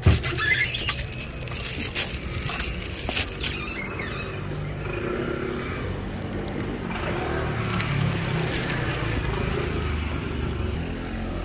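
Plastic carrier bag crinkling and rattling in the first few seconds, then the steady rumble of city street traffic.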